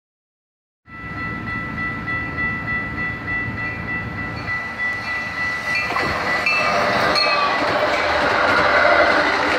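Metra commuter train of bilevel gallery cars approaching and passing a grade crossing, starting about a second in. High steady tones ring over the rumble as it nears, then shift in pitch about six seconds in as the cars go by and the clatter and rush of the passing train grows louder.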